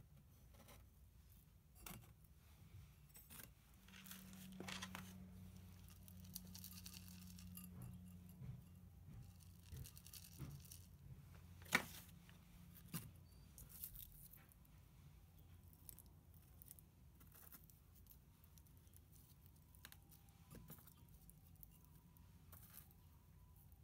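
Quiet rustling and scraping of gritty potting mix as it is scooped with a plastic scoop from a plastic tray and handled in terracotta pots, with scattered small clicks, the sharpest about twelve seconds in. A low steady hum runs underneath.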